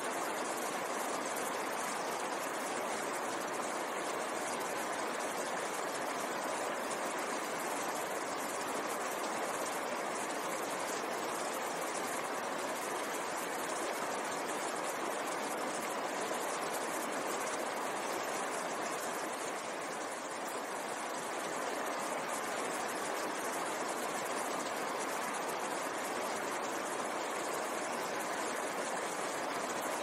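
Fast, shallow mountain stream rushing and splashing over boulders: a steady, unbroken rush of water.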